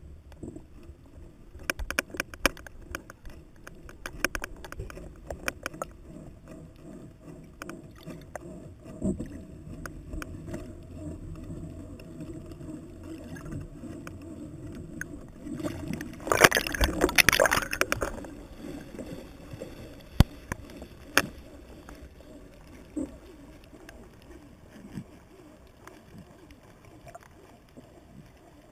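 Muffled underwater noise picked up by a camera in a waterproof housing as it goes down a dive line. Scattered sharp clicks and knocks, and a loud burst of noise about 16 seconds in that lasts about two seconds.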